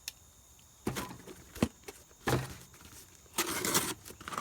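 Cardboard shipping box being handled and opened: a few knocks and clicks, then a longer rasping scrape about three and a half seconds in.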